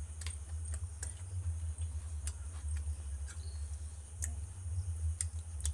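A person eating: scattered sharp mouth clicks and smacks of chewing, about one or two a second and unevenly spaced. Under them run a steady low hum and a faint, steady high-pitched whine.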